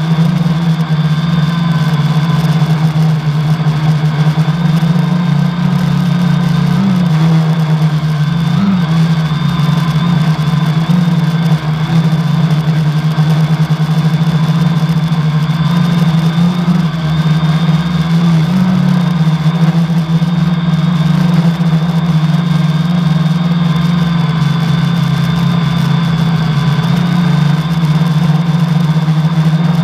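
Quadcopter's four 1000 kv brushless outrunner motors spinning 10x4.5 props in flight, heard from a GoPro on the frame: a loud steady drone whose pitch blips briefly a few times with throttle corrections, with a steady high whine over it. One motor has a bad bearing, which the owner says can be heard.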